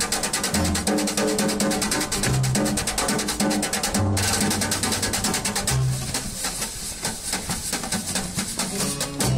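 Small acoustic street band playing: a snare drum swept and struck with brushes in a fast, busy rhythm, over plucked upright bass notes and acoustic guitar. The drumming drops out for a moment about four seconds in and plays more lightly for the last few seconds.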